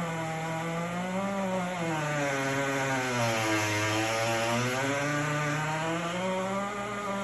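GE Opal countertop nugget ice maker making a loud, continuous squeal, rich in overtones, that dips in pitch about halfway through and then rises back. It is a fault noise that began after two weeks of use and was not cured by cleaning and running vinegar through the machine.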